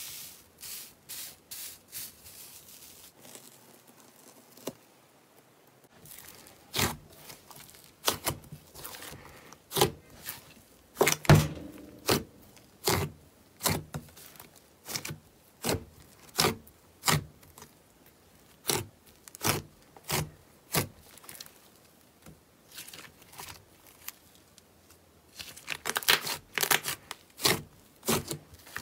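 Thick white fluffy slime being poked and squeezed by fingers: a series of wet, crackling squelches and pops, about one or two a second, with a short lull a few seconds in and a quicker run near the end.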